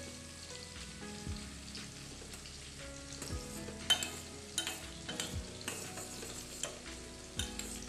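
A pot of water and soya chunks at a rolling boil on a gas stove, bubbling and crackling with sharp pops that grow busier and louder about four seconds in.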